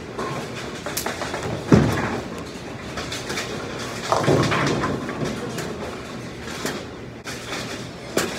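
Bowling alley: balls rolling down the wooden lanes with a steady low rumble, and pins crashing twice, about two seconds and four seconds in, with a few sharp clacks between.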